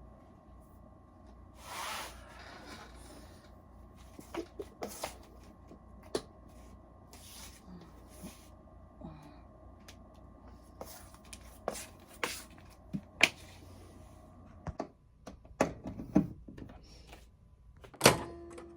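Objects being handled: scattered clicks, taps and knocks with a short rustle about two seconds in and a cluster of sharper knocks near the end, over a faint steady hum.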